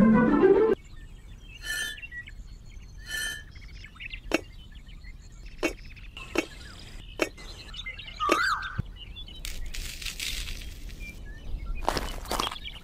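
Miniature clay bricks being set down one at a time on packed sand, giving a few sharp separate clicks, with birds chirping now and then in the background. Near the end comes a short hiss as dry cement and grit mix is poured from a small bag onto a slab.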